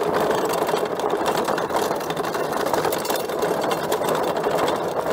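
Electric bike ridden fast along a dirt single-track: a steady mechanical whirr of the drivetrain and tyres on dirt, with continuous fine rattling.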